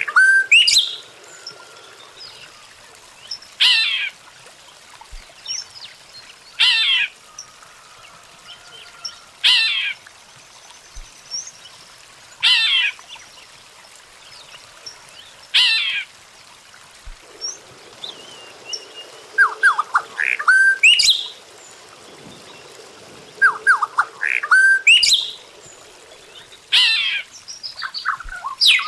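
Weaver bird calling: a short rattling phrase that falls steeply in pitch, repeated about every three seconds, with a few runs of lower clipped notes in between.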